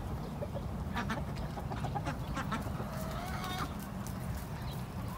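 Chickens clucking quietly in a mixed flock with ducks, with one longer call about three seconds in.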